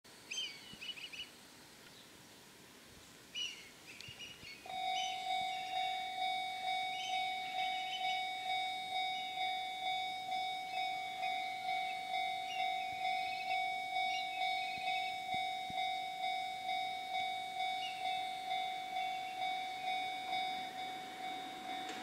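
A Japanese railway level-crossing warning alarm starts suddenly about five seconds in and keeps up its electronic bell, about two strikes a second, warning that a train is approaching. A few short chirps come before it.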